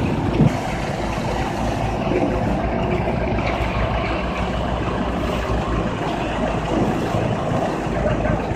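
Engine of a road-paving machine running steadily.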